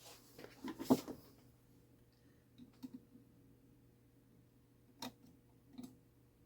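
A few irregular light clicks from a 1960s mantel clock movement being worked on and tested. They come singly and in pairs, not as a steady tick, with the loudest just under a second in.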